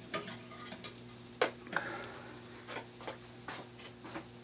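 A string of irregular, light metallic clicks and clinks from tools and wiring being handled, one ringing briefly about a second and a half in, over a steady low electrical hum.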